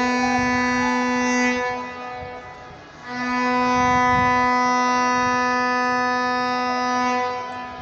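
A vuvuzela blown in two long, steady blasts on one buzzing note. The first ends about a second and a half in; the second starts about three seconds in and lasts about four seconds.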